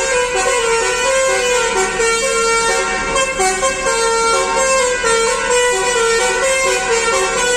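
Bus musical air horn (a 'basuri' horn) playing a tune in stepping notes, loud and without a break.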